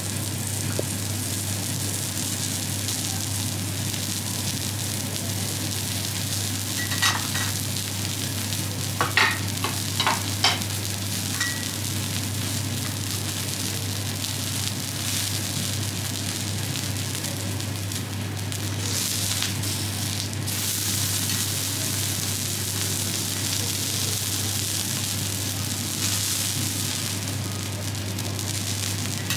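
Wagyu steak sizzling on a teppanyaki griddle, a steady hiss over a low hum, with a few sharp metal clinks of the chef's knife and spatula on the steel plate between about seven and eleven seconds in.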